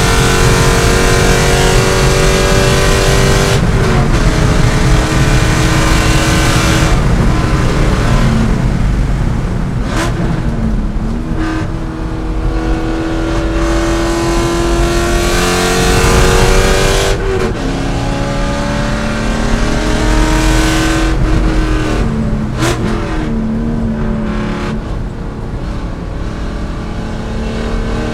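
C5 Corvette race car's V8 engine under hard acceleration, its pitch climbing steadily through each gear and dropping sharply at upshifts a few seconds in, in the middle and again later. There is a quieter stretch of lifting off with falling pitch in between.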